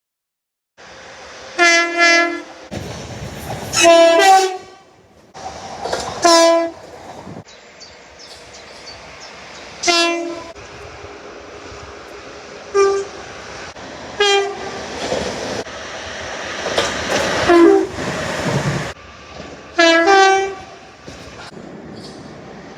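Southeastern train horns: about eight short horn blasts, some of them two notes, from a string of separate clips joined by sudden cuts, over the noise of trains running on the rails.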